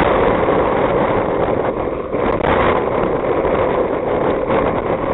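Loud steady rushing noise of wind blowing across the camera microphone.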